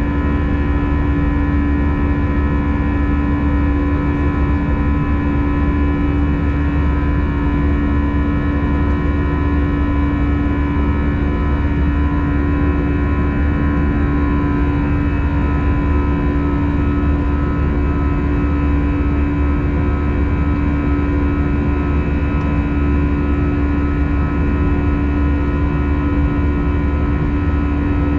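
Cabin noise of an Airbus A320 in flight: a steady engine drone and airflow rumble, deep and loud, with a constant hum and several thin steady whining tones above it.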